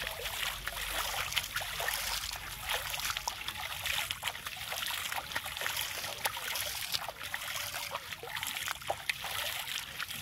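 Hand splashing river water again and again, with spray and drips falling back onto the surface in many small splashes.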